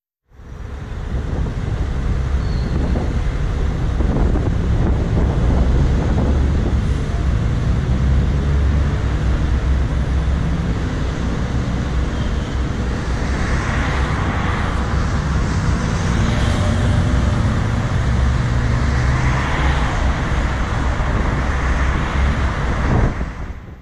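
Road traffic noise with a heavy low rumble and wind on the microphone, picked up by a camera mounted outside a car idling in traffic. Passing traffic swells a little about halfway through and again near the end.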